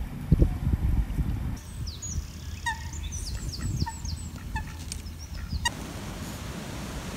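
Mallard ducks on a pond calling softly, with a small songbird singing quick high falling chirps over them. Low rumbling thumps come before, in the first second and a half, and an even outdoor hiss follows near the end.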